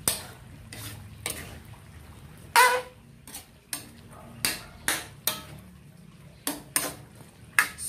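Metal ladle stirring vegetables in a metal wok, scraping and knocking against the pan about a dozen times. The loudest is a ringing clank about two and a half seconds in.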